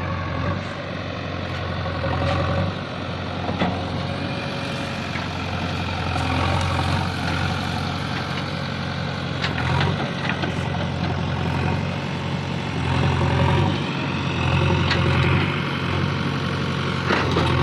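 JCB 3DX backhoe loader's diesel engine running, its low note swelling and easing every few seconds as the load changes, with a few short knocks scattered through.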